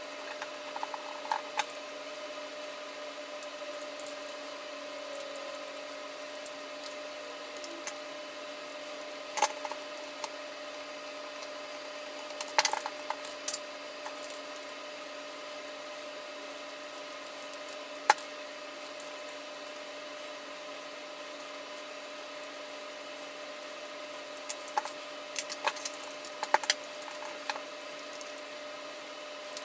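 Scattered clicks, taps and small rattles of the Tamiya Comical Grasshopper kit's plastic rear arms, screws and screwdriver being handled as the arms are screwed onto the plastic gearbox, over a steady faint electrical hum.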